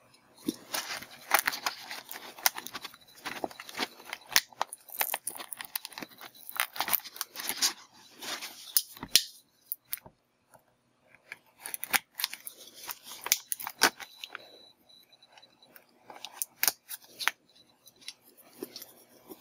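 Cardboard and clear-plastic retail box being handled and opened by hand: irregular crinkling, rustling and sharp clicks of the packaging. It comes in bursts, with a pause of about two seconds partway through and only scattered clicks near the end.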